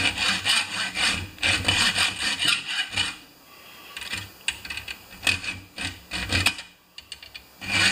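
Hand hacksaw cutting a small metal part clamped in a bench vise, rasping back-and-forth strokes at about two a second. A little after three seconds the strokes go softer, come back unevenly, pause briefly and start again near the end.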